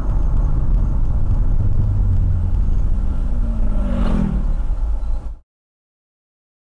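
Car driving, heard from inside the cabin: a loud, steady low rumble of road and engine noise, with the engine note briefly rising about three and a half seconds in. The sound cuts off suddenly after about five seconds, leaving silence.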